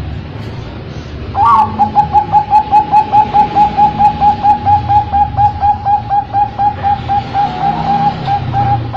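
Bangkok-strain zebra dove (perkutut) singing its cooing song. About a second and a half in, it starts a long, fast, even run of short staccato coos at one pitch, about five a second. A low background rumble sits underneath.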